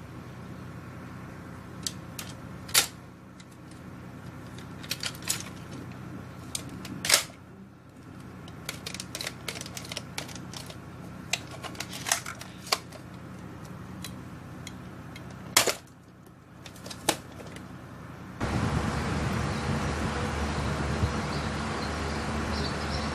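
Plastic clicks and sharp snaps from a Nerf N-Strike Elite Strongarm blaster being handled, the three loudest snaps about 3, 7 and 15 seconds in. Near the end the sound cuts suddenly to a louder steady background noise.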